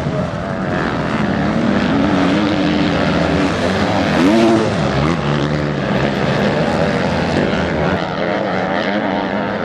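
Several motocross bikes racing, their engines revving and changing pitch as they accelerate and shift, the engine notes overlapping; one revs up and back down sharply about four seconds in.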